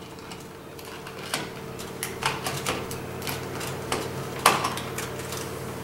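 Plastic clicks and taps as the snap-on lid of a motion detector is worked onto its base, several irregular clicks with the loudest about four and a half seconds in, over a faint steady hum.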